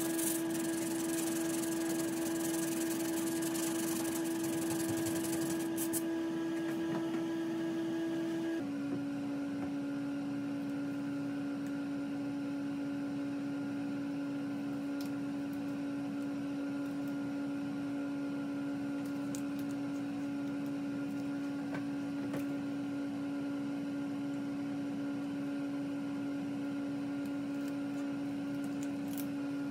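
A steady electrical hum fills the room, with the scratchy rub of a sanding sponge on cured tub-repair epoxy for the first eight seconds or so. At an abrupt change the hum drops slightly in pitch and the rubbing stops, leaving a few faint crinkles and clicks of masking tape being peeled.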